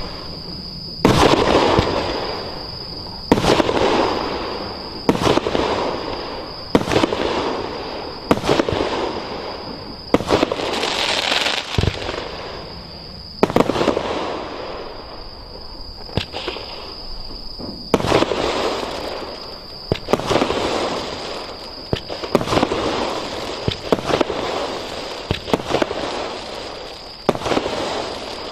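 Multi-shot fireworks cake firing one shot about every two seconds: each a sharp bang followed by a crackling tail of sparks that dies away.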